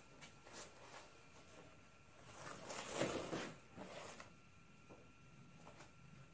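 Faint rustling of wrapping and cloth with light knocks and scrapes as a Dumont keyway broach is unwrapped and lifted out of its wooden box. The rustle is loudest about three seconds in.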